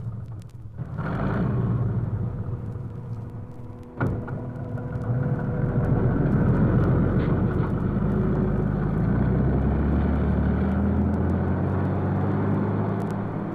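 Science-fiction sound effect from a 1958 sound-effects record: a dense low rumble with a few faint steady tones. It dips briefly near the start, then a sharp click comes about four seconds in, and the rumble swells and holds steady.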